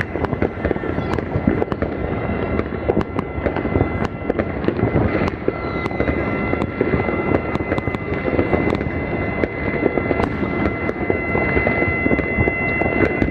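New Year's fireworks going off continuously: many sharp bangs and crackles over a dense rumble of distant bursts, with a few steady high tones running underneath.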